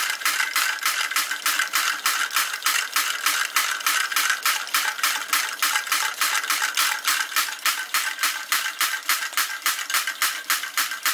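Tarot hot-air Stirling engine running, driving a Wilesco drop hammer by a belt: a fast, even mechanical clicking, several clicks a second, over a steady hiss from the meths spirit burner heating the engine.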